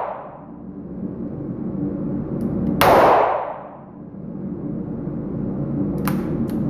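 A single shot from a Ruger GP100 .357 Magnum revolver about three seconds in, ringing through the wooden range and dying away over about a second. The tail of the previous shot fades at the start, and a small click comes near the end.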